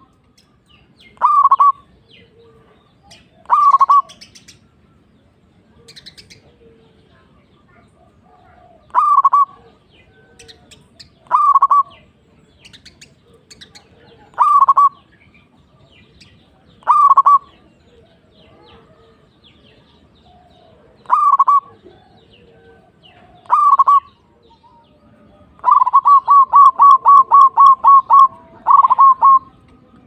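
Zebra dove (perkutut) cooing: short staccato coos every few seconds, then a fast run of about ten coos near the end. Faint chirps of small birds sound in between.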